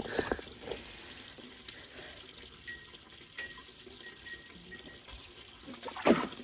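Water running quietly from a hose to top up a garden pond. A short louder sound comes about six seconds in.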